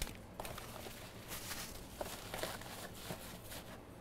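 Faint rustling and crinkling of plastic parts bags and paper being handled, with scattered small clicks as they are packed into a cardboard box.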